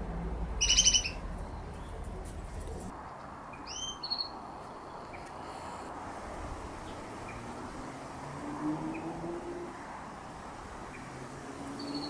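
Australian magpies calling: one loud, short, rasping call about a second in, then a couple of brief higher rising notes about four seconds in. A low background rumble stops about three seconds in.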